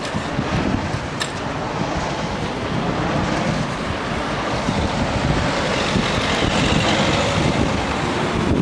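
Road traffic pulling away across a reopened level crossing: car and van engines and tyres, with wind rumbling on the microphone, growing a little louder as a van draws near. A single click sounds about a second in.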